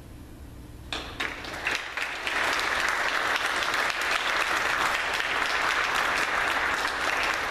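Audience applauding: a few scattered claps about a second in, swelling within a second or so into full, steady applause.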